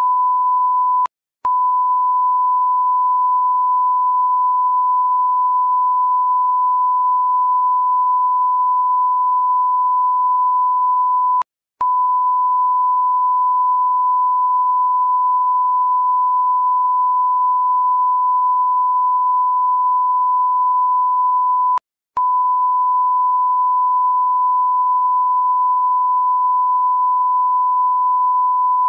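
Steady 1 kHz reference test tone that goes with SMPTE colour bars, a single unchanging pitch. It is broken by three short gaps of silence about ten seconds apart: about a second in, near the middle, and about two-thirds of the way through.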